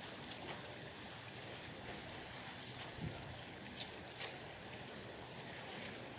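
Steady high-pitched insect chirring with a rapid even pulse, over a constant background hiss, with a few faint clicks.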